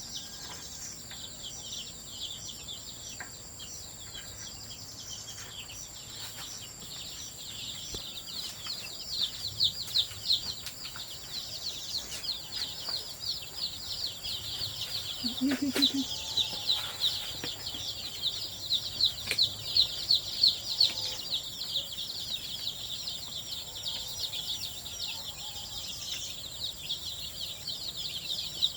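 A flock of young chickens peeping: a dense, continuous stream of short high chirps, many a second, busier and louder from about nine seconds in, over a thin steady high whine.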